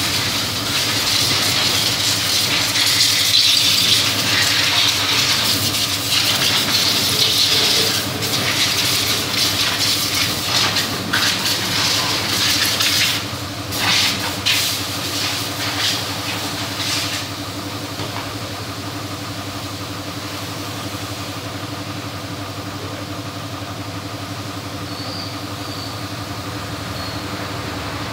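Compressed air hissing from a coiled air-hose nozzle in long blasts, then a few short bursts, stopping about two-thirds of the way through. A steady motor hum runs underneath and carries on alone afterwards.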